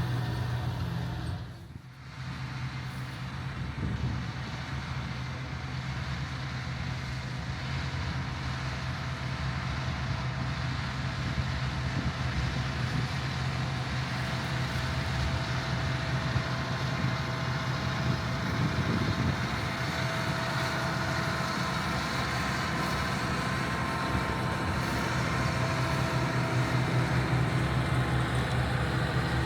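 John Deere 8270R tractor's diesel engine running steadily under load with a deep, even hum, briefly dropping away about two seconds in.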